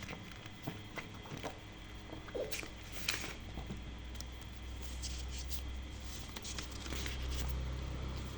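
Scattered light clicks and rustles of handling, over a low steady hum that grows a little stronger near the end.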